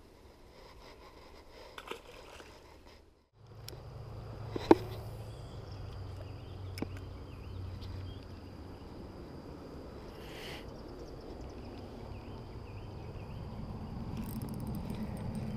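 Insects singing in a steady high drone over a low steady outdoor rush, with one sharp click about five seconds in. The sound drops out briefly about three seconds in.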